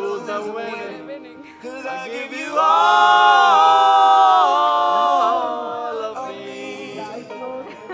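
Singing voices with little or no instrumental backing, holding one loud long note from about two and a half seconds in for nearly three seconds before it trails off.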